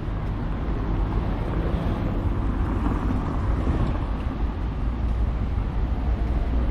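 Outdoor street ambience: a steady low rumble of wind on the microphone, with faint traffic beneath.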